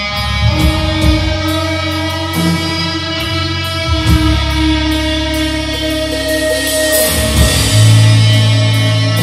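Atmospheric doom/sludge metal band playing live: guitar and bass holding long, slow, heavy notes over drums. A deep, loud bass note comes in near the end.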